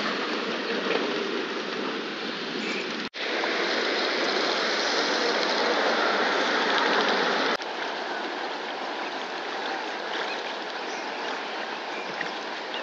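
Steady lakeside ambience, an even hiss of lapping water, broken by two abrupt cuts about three and seven and a half seconds in where the background changes.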